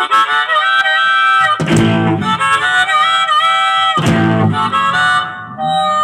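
Amplified blues harmonica playing a lead line of held notes with pitch bends over a live band. Electric guitar, bass and drums hit two heavy accents, about a second and a half and four seconds in.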